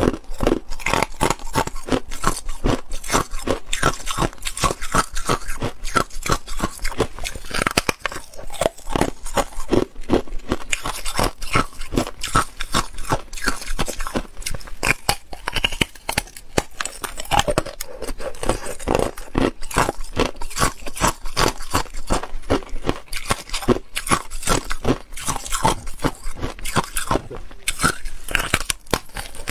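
Hard clear ice being bitten and crunched between the teeth: a dense, continuous run of sharp cracks and crunches.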